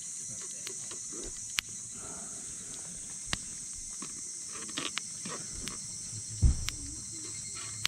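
A steady high-pitched insect chorus, such as crickets, runs on, with scattered sharp clicks and a dull low thump about six and a half seconds in.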